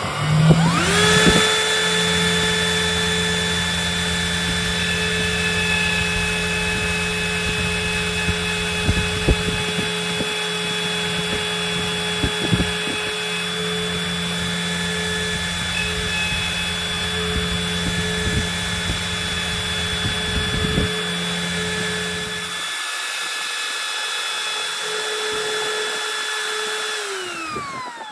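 Trim router spinning up about a second in, then running steadily with a high whine as it cuts a round bar in wood, with scattered knocks from the cut. A lower machine hum underneath stops about three-quarters of the way through, and the router winds down near the end.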